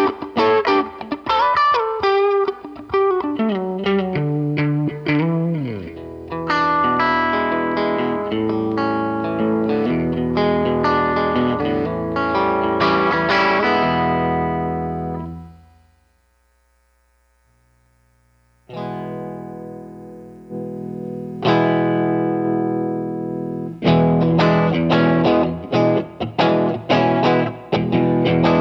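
Electric guitar through a Line 6 POD HD300 amp model with distortion, recorded direct: fast picked lead notes with a falling bend near the start, then ringing chords that fade out about halfway, a short pause, and new chords and rapid picking in the last few seconds.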